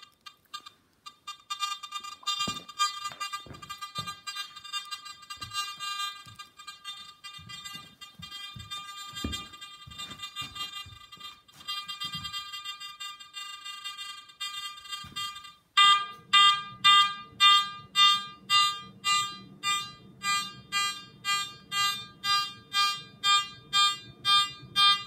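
Garrett AT Max metal detector with an NEL Tornado coil, in all-metal mode at maximum sensitivity, giving a steady electronic tone with a few faint knocks. About two-thirds in it breaks into loud repeated beeps, about two a second, as a coin is passed over the coil at the edge of its detection range.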